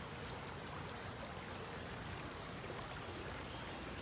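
Creek water running steadily over the stream bed.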